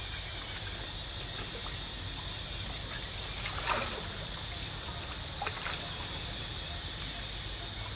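Water splashing and trickling as young macaques swim and wrestle in a shallow pool, with one louder splash about halfway through as one of them dives under.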